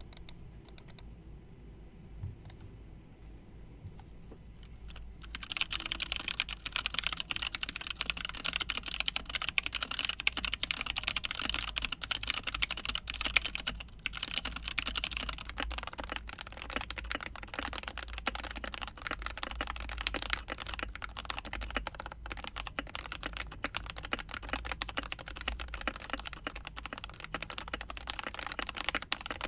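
Typing on a Keychron K2 mechanical keyboard with Gateron Brown switches. A few single keystrokes come first, then steady, fast typing starts about five seconds in.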